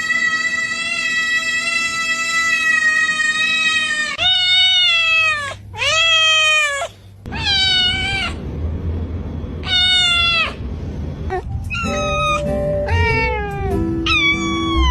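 Domestic cat meowing: one long, drawn-out meow, then a string of shorter meows that drop in pitch at the end.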